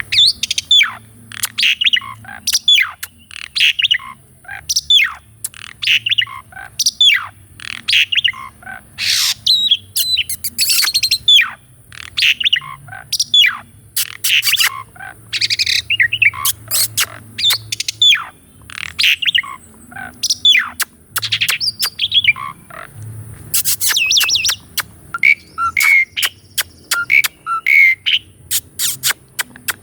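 Asian pied starling (jalak suren) singing a long, varied song: a fast run of falling whistled notes, about two a second, mixed with harsher chattering notes and short repeated notes near the end.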